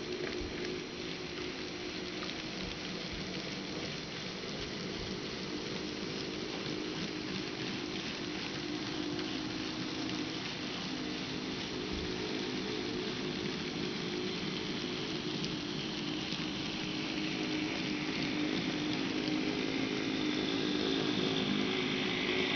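Model freight train rolling past on the layout track: a steady motor hum with the rolling and clicking of the cars' wheels on the rails. It grows louder toward the end as the diesel locomotive comes by.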